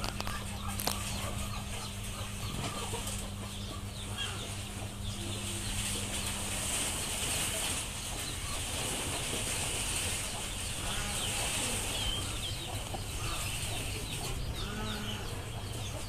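Chickens clucking in the background with scattered short bird calls, over a steady low hum and a light even hiss.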